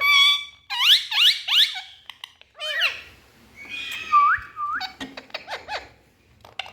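Indian ringneck parrot calling: a string of sharp squawks that fall quickly in pitch, two short rising notes about four seconds in, then a fast run of short clicky notes.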